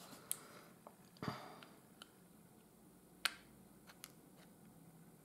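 A few light, sharp clicks and taps of small plastic nail-art items being handled and set down, the sharpest about three seconds in.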